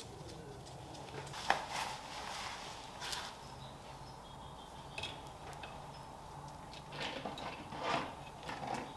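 Scattered light clicks and rustles of hands working wires into a metal electrical switch box, over a faint steady hum.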